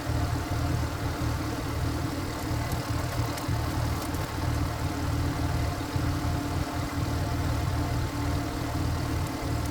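Power tiller's single-cylinder diesel engine running steadily at idle, with a rapid low throb.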